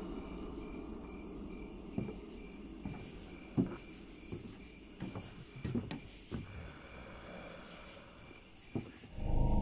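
Crickets chirping steadily in a night ambience, with a few short, scattered knocks. Near the end a much louder low sound swells in.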